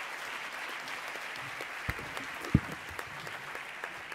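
Audience applauding steadily, with a couple of dull thumps about two to two and a half seconds in. The clapping thins out near the end.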